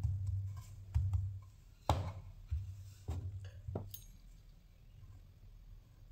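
Dough being pressed and rolled flat on a wooden board: about six soft knocks and thuds against the board over the first four seconds, the sharpest near two seconds in, then quieter.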